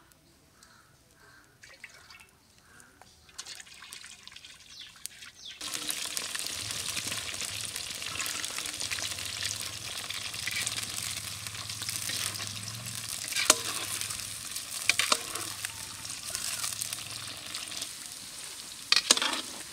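Cauliflower florets deep-frying in hot sunflower oil in a kadai: quiet at first, then a steady, loud sizzle starts suddenly about five and a half seconds in. A few sharp knocks of the spatula against the pan come during the stirring, the last near the end.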